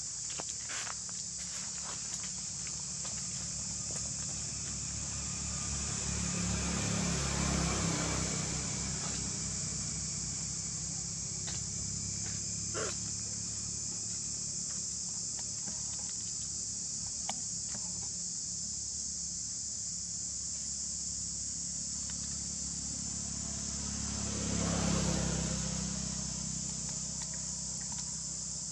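Steady high-pitched drone of a chorus of insects. A low rumble swells and fades twice, about a quarter of the way in and near the end, and there are a few faint clicks.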